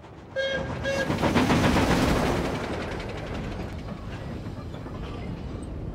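A mail train passing over a level crossing: two short toots, then the rumble and clatter of its wheels, loudest about two seconds in and slowly fading.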